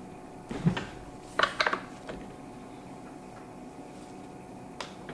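Light clicks and knocks of tools and chainsaw parts being handled on a work table as the saw is taken apart: a soft thump just under a second in, a quick cluster of sharp clicks about a second and a half in, and a single click near the end.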